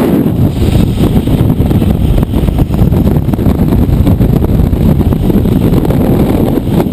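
Loud wind buffeting the camera microphone during a fast wire-guided drop, a dense low rumble with no pauses.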